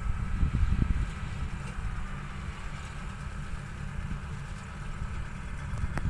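Rice combine harvester running steadily as it cuts through the crop: a continuous low engine rumble with a faint steady whine above it.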